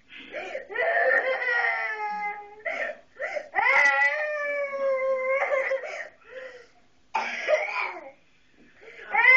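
A three-year-old girl crying in a tantrum: long, drawn-out wails that slide down in pitch, broken by ragged sobbing breaths, with a brief lull before another wail starts at the end.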